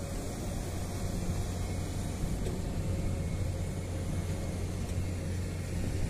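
Heavy diesel engine running steadily: an even, unchanging hum with no strokes or knocks standing out.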